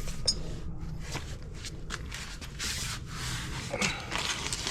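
Hands working on the car's suspension while refitting a bolt: rubbing and scraping, with a few light clicks.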